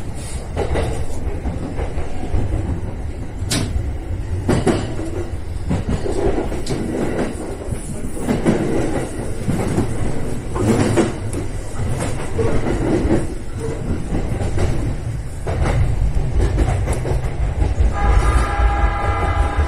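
JR East electric commuter train running over points and rail joints, heard in the driver's cab: a steady low rumble with irregular sharp clacks as the wheels cross the switches. Near the end, as the train runs along a platform, a steady high tone of several pitches sounding together joins in.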